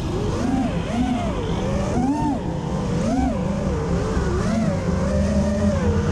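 Mud-racing truck engine revving up and down over and over, about twice a second, as it churns through the mud, then holding a steadier note near the end.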